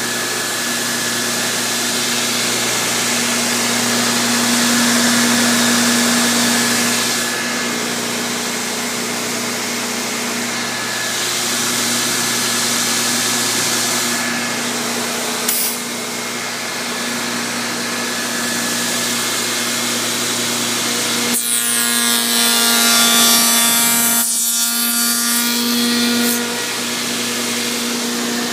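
Table-mounted router running steadily, with louder stretches as its bit cuts the coped end of a wooden door rail held in a coping sled; the longest and harshest cut comes near the end.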